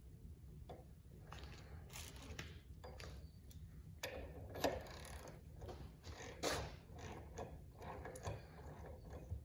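Hand ratchet and socket tightening an oil cup into a 6.0 Powerstroke oil rail: faint, scattered ratchet clicks and light metal clinks.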